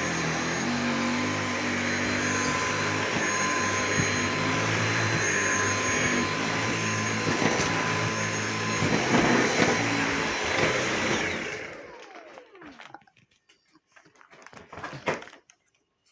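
Dyson V8 Animal Extra cordless stick vacuum running steadily with a high whine as it cleans an entrance mat. About eleven and a half seconds in it is switched off and the motor whine falls away as it spins down, followed by a few light knocks.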